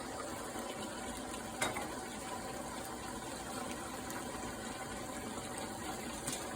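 Chicken curry simmering in a pot on the stove, a steady bubbling hiss, with a single sharp click about one and a half seconds in.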